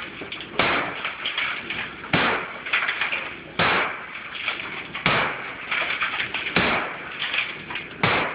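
Sledgehammer blows landing on something hard: six strikes evenly spaced about a second and a half apart, each trailing off over about a second.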